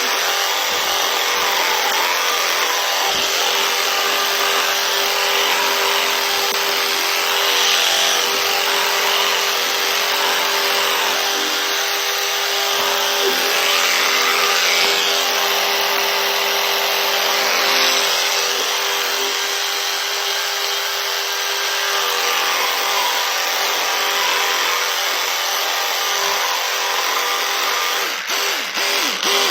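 A small electric motor running steadily with a continuous rush of air or spray over it, holding one pitch throughout, as from a bathroom appliance such as a hair dryer or an extractor fan.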